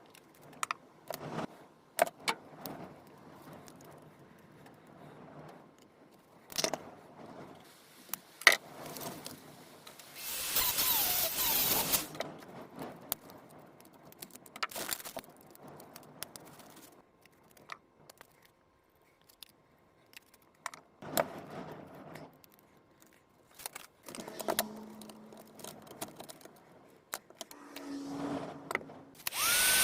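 Scattered clicks, taps and clatters of small tools and angle grinder parts being handled on a workbench. About ten seconds in there is a louder hissing burst lasting nearly two seconds.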